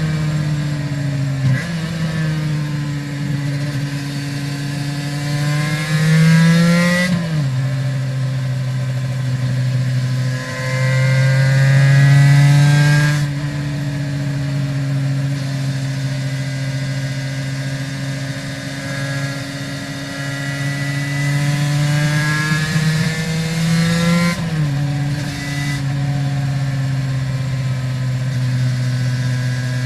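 Aprilia RS 250's two-stroke V-twin with Arrow exhausts, heard from the rider's seat while under way. The engine note climbs steadily in pitch, drops sharply about seven seconds in and again near the end, and runs steadier in between.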